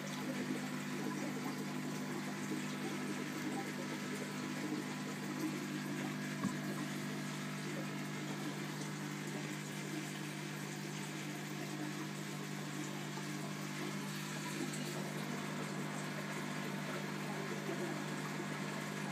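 Aquarium filter and air pump running: a steady low hum under continuous water bubbling and trickling, with one soft tap about six seconds in.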